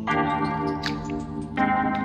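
Background music: sustained keyboard chords changing about every one and a half seconds, with a few light chime-like notes.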